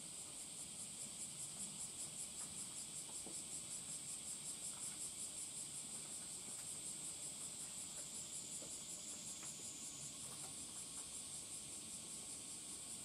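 Shrill, high-pitched chorus of summer insects, pulsing rapidly, its pulsing smoothing into a steadier drone about ten seconds in.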